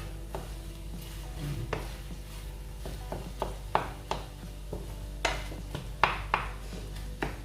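A spatula scraping and tapping against a frying pan as scrambled eggs are slowly stirred, in irregular short strokes, with a few louder knocks about five to six seconds in.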